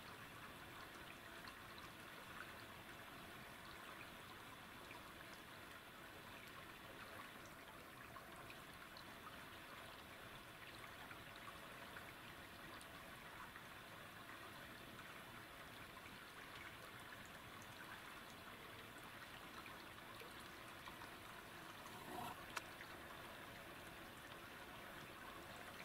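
Near silence: faint steady hiss of outdoor room tone, with a brief faint knock near the end.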